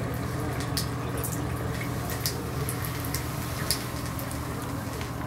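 Bathtub faucet running a thin, steady stream of water into the tub, with scattered small ticks and drips over the flow.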